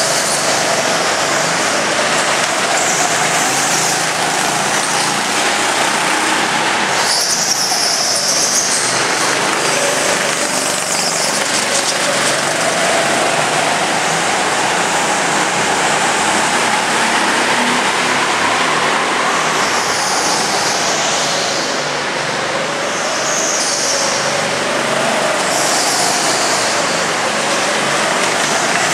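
Go-kart engines running on an indoor track, the engine note rising and falling as the karts speed up through the straights and slow for the corners.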